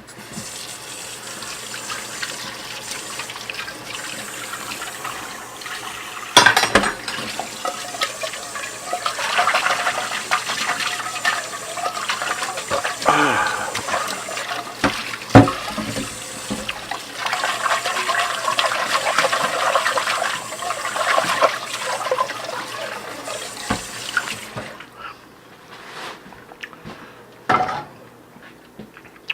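Water running into a sink from a tap, with a few sharp knocks and clinks, cutting off abruptly near the end.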